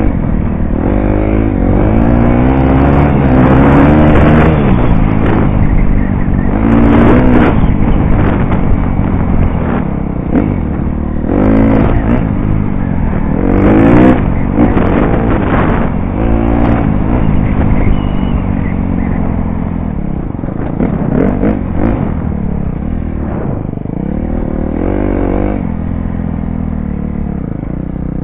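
KTM dirt bike engine riding a sandy trail, revving up and easing off again and again as the rider works the throttle and shifts through the gears.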